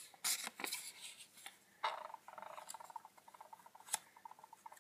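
Paper hearts being handled and set down on a sticky-note pad: light rustles and taps of paper. A faint, rapid ticking runs under it from about two seconds in.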